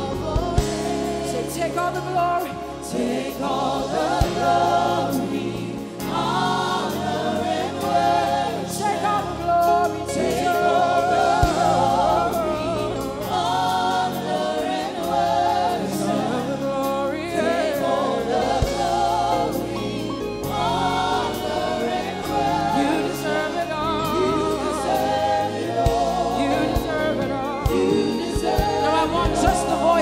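Live gospel worship music: a lead singer and backing vocalists sing with vibrato over keyboard and bass accompaniment.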